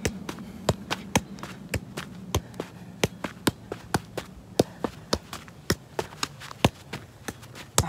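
A size 4 football being juggled in keepy-ups: a steady run of sharp touches of shoe on ball, about two strong kicks a second with lighter taps between.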